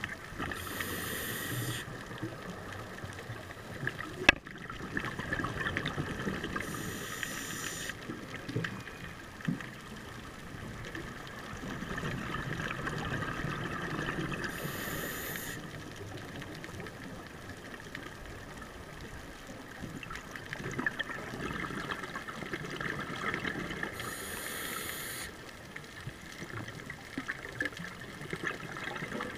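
Scuba diver breathing through a regulator, heard underwater: four hissing inhales several seconds apart, with bubbling exhales between them. One sharp click about four seconds in.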